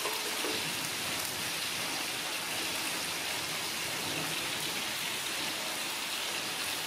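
Horse mackerel frying in hot oil: a steady sizzle.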